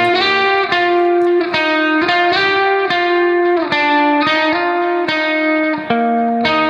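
Background music: a plucked guitar melody, its notes changing about twice a second.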